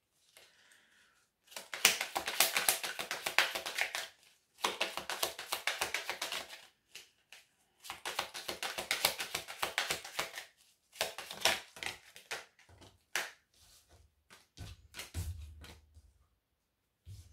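A deck of oracle cards being shuffled by hand in three bursts of rapid clicking, then a few separate card taps and soft thumps as cards are handled and laid down.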